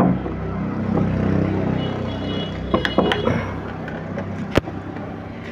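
A vehicle engine running steadily with a low hum, swelling over the first couple of seconds and then easing off. Over it come a few sharp metal clinks of steel gearbox gears and shaft parts being handled, the sharpest about four and a half seconds in.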